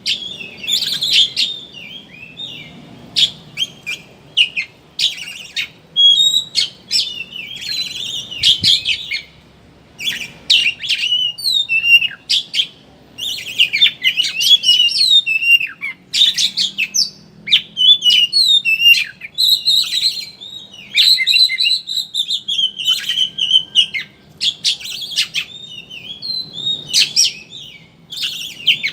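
Oriental magpie-robin (kacer) singing in the fast chattering 'ngeriwik' style: rapid, varied high whistles and trills in quick bursts with short pauses.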